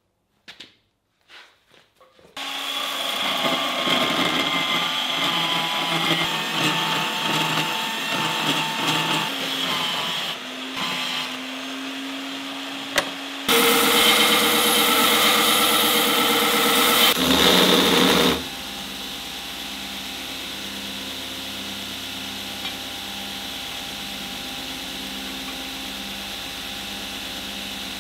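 Belt grinder running, starting about two seconds in, with a steel axe head ground against the abrasive belt; the grinding is loudest for about five seconds in the middle. After that the belt runs on with a steady hum and a soft regular pulse.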